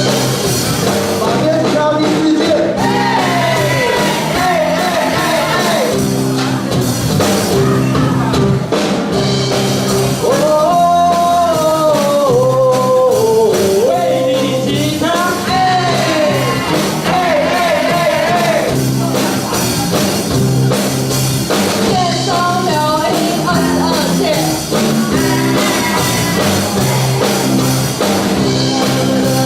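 A rock song played live, a singer's voice carrying the melody over a band.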